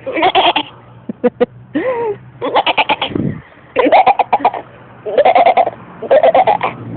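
A woman imitating a goat with her voice: about six short, quavering bleats in a row, the 'funny' goat call she was asked to do.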